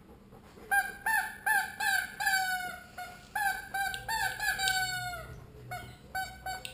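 A dog's squeaky rubber toy squeaked over and over as a malamute chews on it at play. There are about a dozen short squeaks of the same pitch, with a longer squeak that slowly falls in pitch around the middle.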